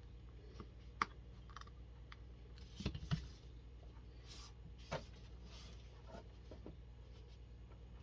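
Faint handling noises from working on an RC truck: a few light clicks and short rubs of small parts, the strongest about a second in, around three seconds and about five seconds in, over a low steady hum.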